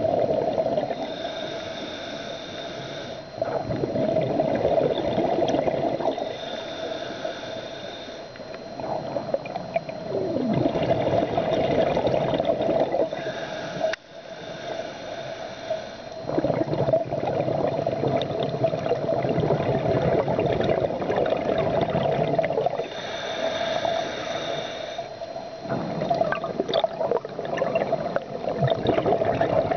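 Scuba diver breathing through a regulator: a hissing inhale of about two seconds, then a longer, louder burble of exhaled bubbles, the cycle repeating several times.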